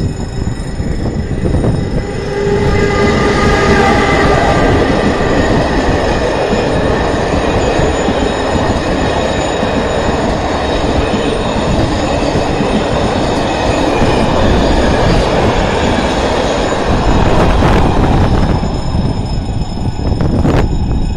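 An ONCF electric locomotive hauling a train of passenger coaches passes close by. A pitched whine comes in a couple of seconds in as the locomotive goes past, then the steady rumble and rush of the coaches rolling by. Near the end come sharp wheel clicks over the rail joints as the last cars pass and the train pulls away.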